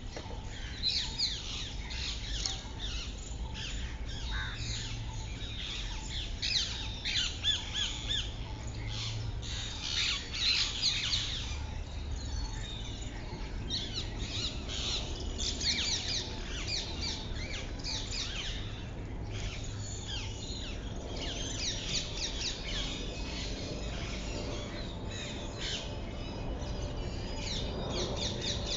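Small birds chirping and calling over one another, many quick rising and falling chirps throughout, over a steady low rumble.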